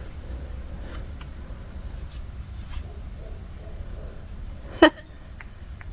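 A single short, sharp yelp-like animal call about five seconds in, over a low steady rumble.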